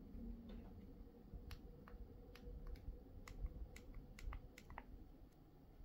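A string of about ten faint, sharp plastic clicks and taps from fingers handling a 1st-generation Apple TV remote, starting about a second and a half in.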